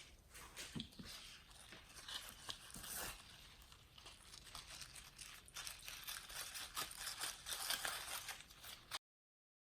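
Slime being squished and worked by hand, giving soft crackling and crinkling with many small clicks and pops. It cuts off to dead silence about nine seconds in.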